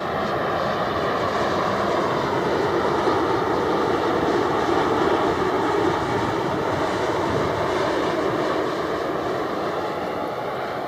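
Boeing 787-8 airliner's Rolls-Royce Trent 1000 turbofans on landing approach: a steady jet rumble with a faint whine, growing to its loudest around the middle and then slowly fading as the aircraft passes and moves away.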